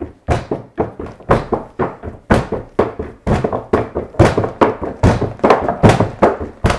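Two people drumming a rhythm with their hands on a tabletop: an even run of thumps and slaps, about four a second, getting louder about two seconds in.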